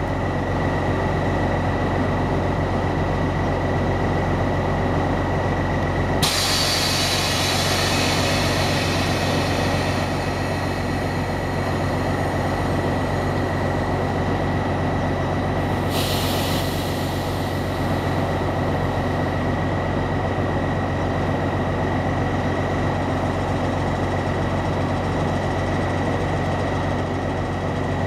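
DR1A diesel multiple unit pulling out and rolling past slowly, its diesel engine giving a steady drone with a steady high whine above it. Two sudden bursts of compressed-air hiss come about six seconds in and again around sixteen seconds, each fading over a couple of seconds.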